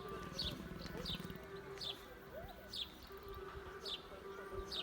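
A small songbird calling repeatedly: short, high chirps that each sweep downward, about one a second, over a low steady background.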